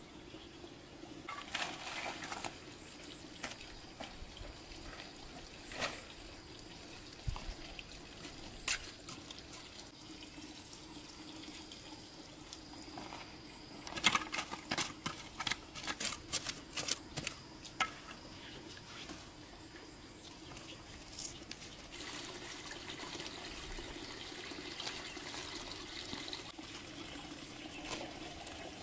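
Water running and trickling, as from a tap into a sink, with bursts of clinking and knocking, heaviest about halfway through, over a faint steady hum. The water grows fuller in the last few seconds.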